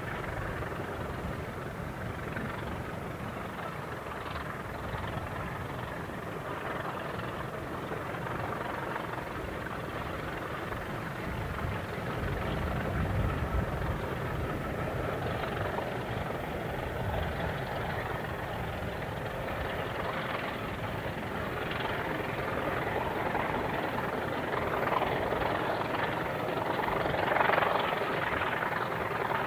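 Two diesel locomotives working hard as they haul a passenger train, heard from a distance as a steady engine throb. It grows gradually louder as the train approaches.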